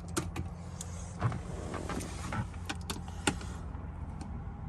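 Scattered light clicks and knocks of plastic and metal parts being handled as a car stereo is worked out of the dashboard, over a steady low hum.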